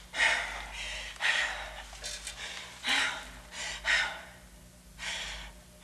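A woman gasping for breath, about six heavy gasps roughly a second apart, a couple with a slight voiced catch. She is struggling to get air.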